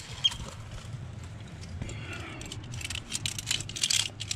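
Metal climbing hardware on a harness, such as carabiners and a rope device, jingling and clinking while the climber moves on the rock, with a quick flurry of clinks in the second half.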